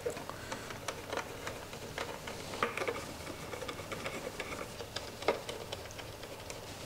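Small, scattered clicks and ticks of the screws being undone and handled on the factory headlight bezel of a BMW R1250GS, with a few sharper clicks among them.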